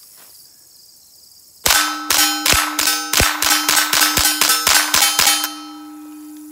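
Rapid string of about twenty .22 LR shots, five or six a second, from a suppressed Ruger Charger fitted with a Franklin Armory BFS III binary trigger, which fires once on the pull and once on the release. A steady ringing tone starts with the first shot and carries on after the last.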